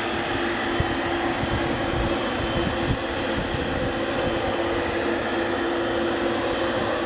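Boeing 777-300ER's GE90 jet engines running at taxi idle: a steady roar with a constant hum underneath. A few low thumps come in the first three seconds.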